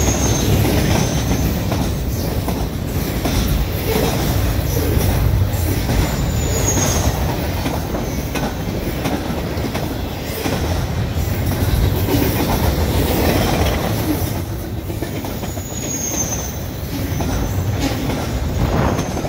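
Double-stack container well cars of a freight train rolling past with a steady rumble of steel wheels on rail. Brief high wheel squeals from the curve come at the start, about six seconds in and about sixteen seconds in.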